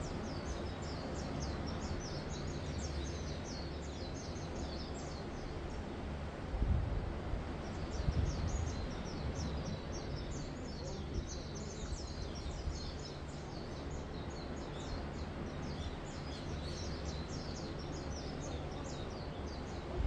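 Steady wash of gentle surf on a sand beach, with small birds chirping in quick, busy runs over it that pause for a couple of seconds about five seconds in. Two brief low rumbles come about seven and eight seconds in.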